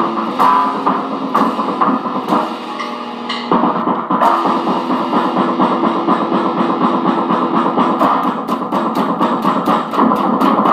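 Gold-top Les Paul-style electric guitar played through a small Fender amp, picked continuously, with quick repeated picked strokes near the end.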